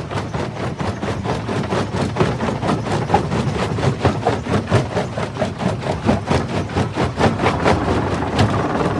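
Jaw crusher running and crushing stone: a steady machine drone under rapid, irregular cracking and crunching of rock, several cracks a second.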